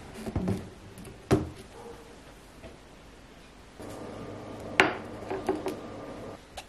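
Objects set down on a hard, glossy tabletop. First a laptop, with a few soft knocks and a sharper knock about a second in. Then a plate lands with a ringing clink near the five-second mark, followed by a few lighter taps, over a low steady hum.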